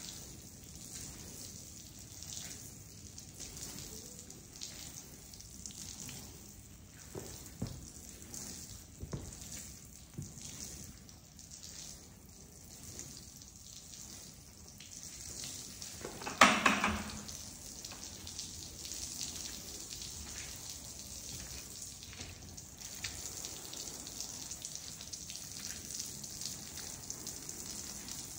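Water running and splashing over a wet rug as it is washed, with scattered short scrubbing strokes. One sudden, louder knock about sixteen seconds in.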